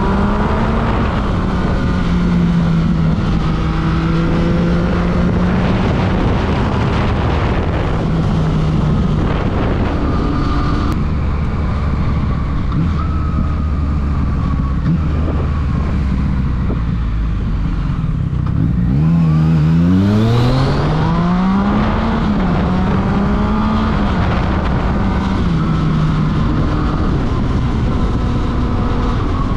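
Yamaha FZ-09's inline three-cylinder engine through a full Akrapovič exhaust, heard from the rider's seat while riding, over wind noise. It settles to a low, steady note for several seconds in the middle, then revs hard through a gear about two-thirds of the way in and shifts up.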